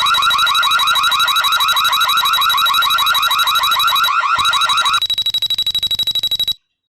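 Tuya Smart D41 door/window alarm's built-in electronic siren sounding loudly: a fast warble of about seven sweeps a second. About five seconds in it switches to a faster pulsing beep, and it cuts off suddenly about a second and a half later.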